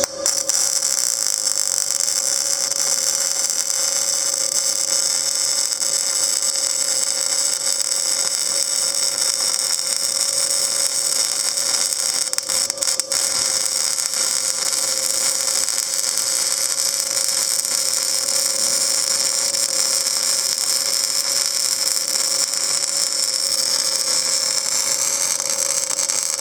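Panasonic YD-350GR3 semi-automatic welder laying a continuous weld: a steady, loud arc hiss over the machine's hum, with a brief break about 13 seconds in.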